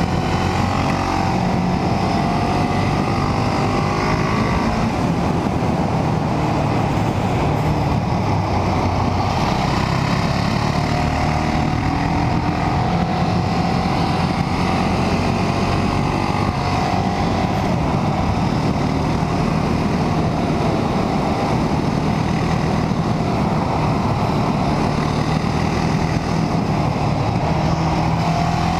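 KTM 690 Duke's single-cylinder engine pulling steadily uphill at a constant road speed, its note rising and dipping only slightly with the throttle.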